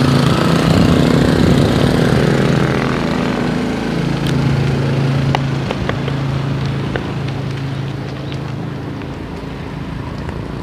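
A steady engine hum that slowly fades, over rushing wind noise from riding a bicycle, with a few sharp clicks near the middle.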